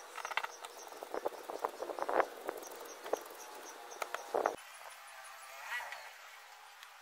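Brass wire brush scraping carbon off a spark plug's electrode end in short, irregular strokes, stopping about four and a half seconds in. A cricket chirps in a steady high rhythm in the background.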